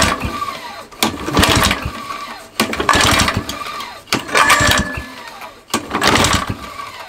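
Two-stroke Tecumseh lawn mower engine being pull-started over and over, about five pulls roughly a second and a half apart, turning over without firing. Each pull brings a scraping noise with a falling whine as the engine spins down, which the owner puts down to the pull start.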